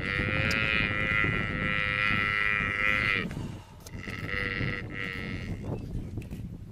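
African buffalo calf bawling in distress as a lioness holds it: two long, high, steady bleats, the first about three seconds long and the second shorter, starting about a second after the first ends.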